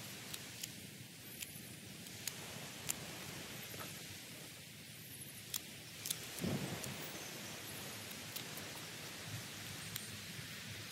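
Pruning shears snipping stems in sharp, irregular clicks, with the rustle of cut plant material. A gust of wind buffets the microphone about six seconds in.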